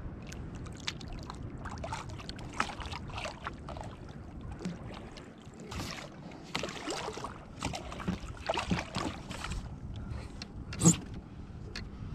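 Water splashing and sloshing against a plastic kayak as a hooked thresher shark is hauled alongside, with scattered knocks and rattles of gear throughout and one sharp knock about eleven seconds in. A low wind rumble runs underneath.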